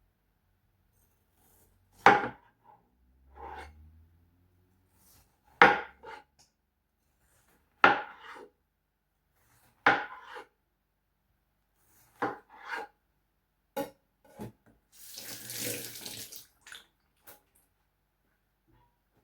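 Kitchen knife cutting through watermelon and knocking on a cutting board: sharp knocks about every two seconds, with lighter taps later on. A short rushing noise about fifteen seconds in.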